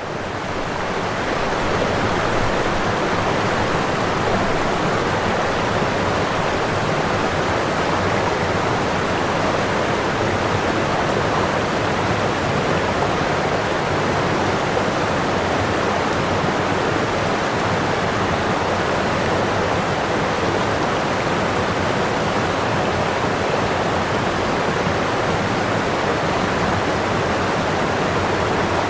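Waterfall rushing steadily: a continuous, even roar of falling water that swells up over the first second or two and then holds level.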